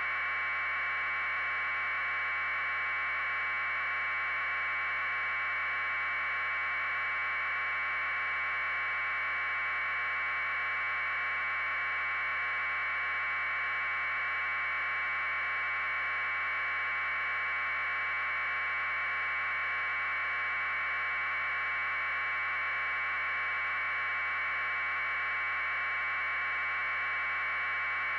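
Steady electronic hiss confined to a narrow band of middle pitches, unchanging throughout, with no other sound on the track.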